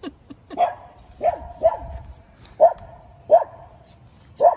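A dog barking, about six short sharp barks at an uneven pace.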